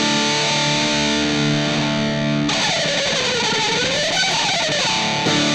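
Electric guitar played through the M-vave Mini-EFX pedal on its distortion preset 9, "Dist-MT2". A distorted chord rings out for about two and a half seconds, then a single-note line slides down and back up in pitch, and a new chord is struck near the end.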